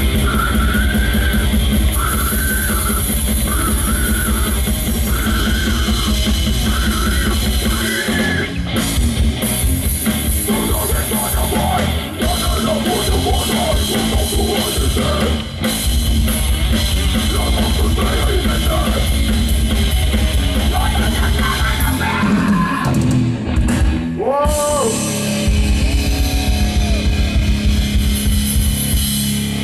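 Live death metal band playing loud: distorted electric guitar, bass and drum kit, with fast, dense kick-drum pulses under a repeating riff. About two-thirds of the way through, the full band drops out briefly, leaving a few held notes, then crashes back in.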